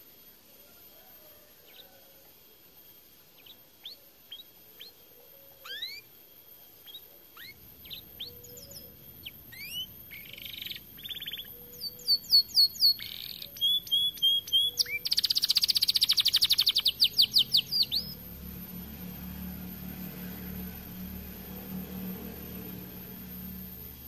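Domestic canary singing: scattered short rising whistles that build into rapid trills and loud, fast-repeated notes, then the song breaks off about three quarters of the way through. A low steady hum follows.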